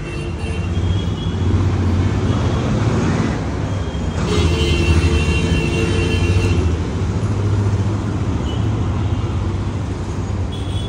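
Road traffic: vehicle engines running with a steady low rumble, and a held tone for about two seconds midway through.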